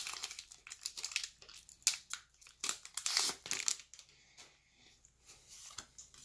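Foil Pokémon booster pack wrapper crinkling and tearing as it is opened by hand, a quick run of crackles that thins out after about four seconds.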